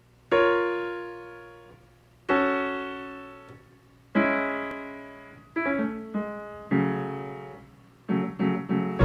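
Solo piano intro: chords struck one at a time and left to ring and fade. Three slow, widely spaced chords come first, then shorter, quicker chords toward the end.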